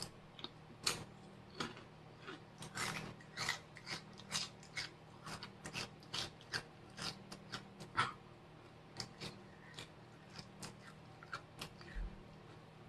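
Crunchy spicy corn chips being bitten and chewed: a string of irregular sharp crunches, about two or three a second, with softer chewing between.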